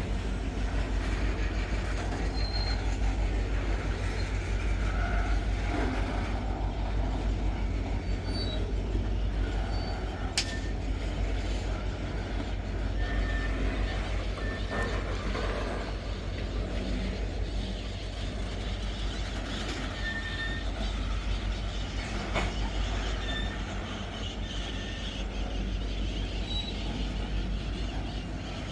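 Metre-gauge freight train rolling past on the track, a steady rumble with short high wheel squeaks now and then and one sharp click about ten seconds in.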